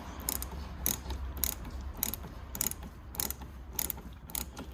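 A hand ratchet clicking on its back-swings as a door-panel screw is driven in, about two sharp clicks a second.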